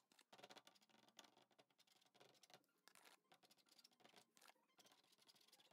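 Faint, irregular dabbing and scratching of a hand-held tool working paint onto a canvas, a quick run of small taps and scrapes.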